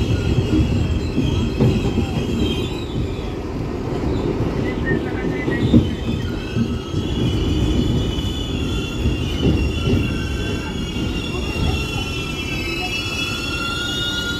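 R62A subway car running and braking into a station: a heavy low rumble of the running gear with a high-pitched squeal from the wheels and brakes that comes and goes, wavering in pitch and strongest in the last few seconds.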